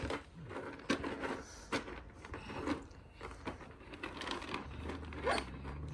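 Dry dog kibble rustling and clattering as small hands rake and scoop it in a plastic storage drawer, with scattered sharp clicks of pieces knocking together. A low steady hum comes in near the end.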